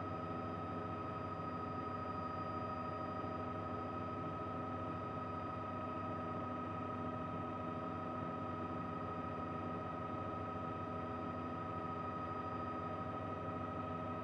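Steady helicopter cabin noise: a constant turbine whine made of several steady tones over an even rumble.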